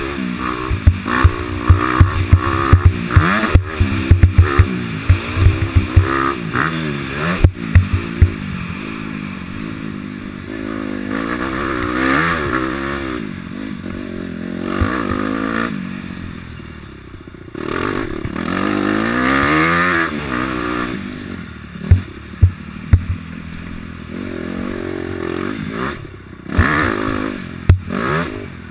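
Honda CRF250 dirt bike's single-cylinder four-stroke engine revving up and down over and over as it is ridden around a motocross track, with many sharp knocks from the bike jolting over the ruts, thickest in the first several seconds and again near the end.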